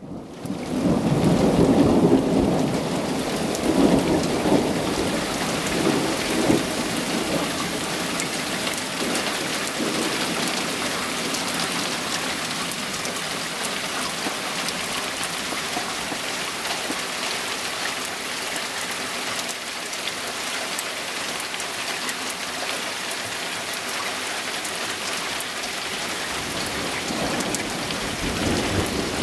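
Mountain thunderstorm: steady rain falling, with rolling thunder rumbling through the first several seconds and building again near the end.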